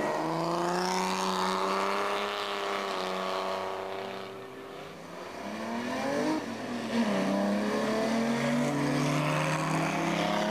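Historic sports racing car engine running hard at speed, its pitch rising and falling as the car accelerates and passes. It drops away briefly about halfway through, then comes back loud with the pitch sweeping up and down again.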